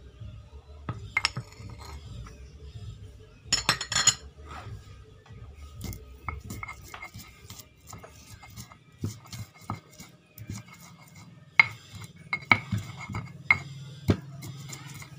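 Light clicks and knocks of hands and ingredients on a stone cobek mortar, with a cluster of sharper knocks about four seconds in and again in the last few seconds, as crushing of the garlic on the stone begins.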